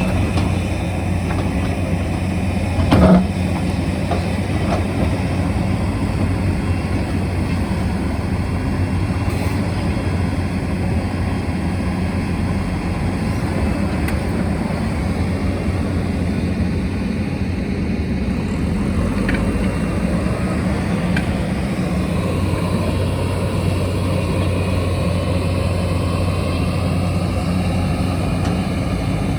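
Diesel engine of a working earthmoving machine running steadily under load, with a loud clank about three seconds in.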